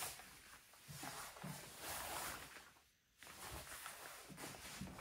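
Faint rustling of a waterproof shell jacket's fabric and soft shuffling as the wearer turns around. There is a brief near-silent gap about three seconds in.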